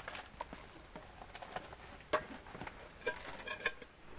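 Metal camp cookware being handled: light knocks and clicks, one sharper click about halfway, and a quick run of short ringing metal clinks near the end.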